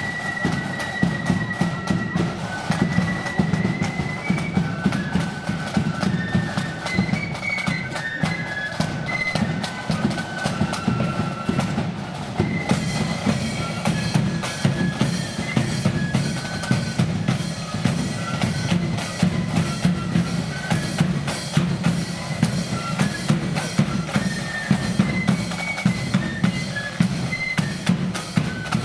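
Marching flute band playing a march: a high flute melody over a steady beat of bass drum and snare drums.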